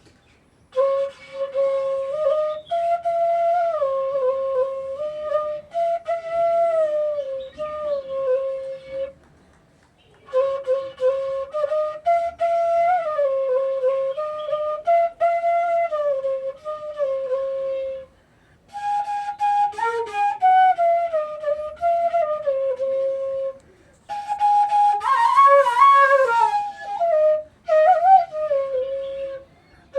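Bansuri (bamboo flute) playing a song melody in four phrases, with short breath gaps between them and slides and bends between notes, as a sound check of a newly made flute.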